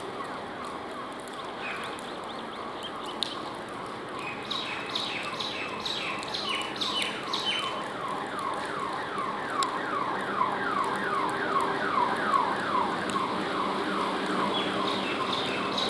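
Electric multiple-unit local train (Bombardier MEDHA three-phase EMU) approaching with a low steady hum. A rapid run of falling whistle-like chirps, about four a second, comes in about four seconds in and carries on until near the end.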